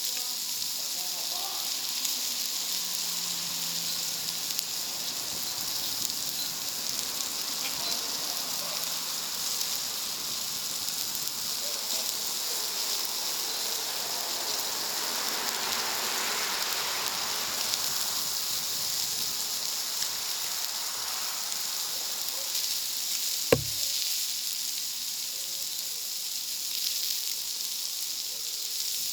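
Food sizzling steadily on a wood-fired plancha griddle, with one sharp click or knock about three-quarters of the way through.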